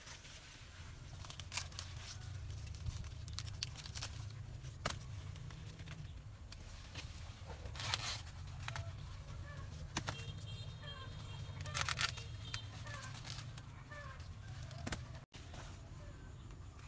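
Intermittent rustling and tearing sounds over a steady low rumble, with faint short bird chirps in the second half.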